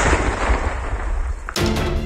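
Loud, rough rumble of a controlled detonation of country-made bombs dying away, cut off about one and a half seconds in by music starting.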